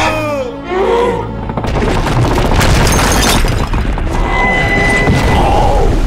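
A giant cartoon character's drawn-out yawn, then a heavy crash and long rumble as his body falls to the ground. Background music runs underneath.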